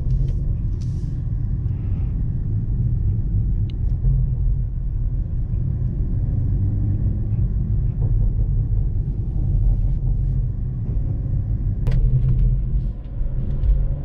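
Steady low rumble of a BMW M340i driving through snow, heard from inside the car, with one sharp click near the end.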